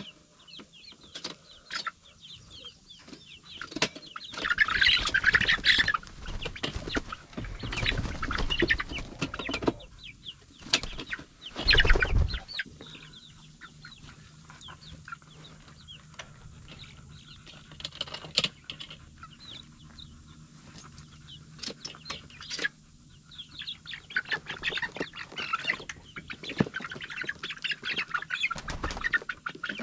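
A group of young chickens peeping and clucking as they come out of a plastic pet carrier. There are loud bursts of flapping and rustling a few times in the first half.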